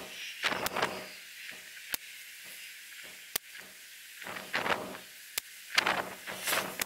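Nova Vista Alpha .22 pre-charged pneumatic air rifle firing rested shots: three sharp cracks, about a second and a half to two seconds apart. Rustling handling noise fills the gaps between them.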